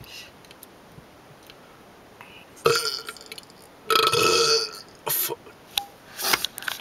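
A person burping loudly: a short burp about two and a half seconds in, then a longer, louder one about a second later, followed by a few short sounds.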